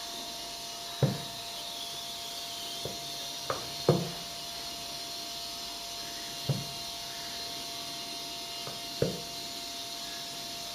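About seven short, sharp knocks and taps at uneven intervals, the loudest about a second in and about four seconds in, over a steady background hum with a faint constant tone.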